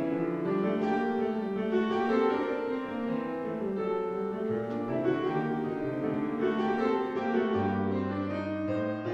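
Classical-style background music led by piano, with long held low notes underneath.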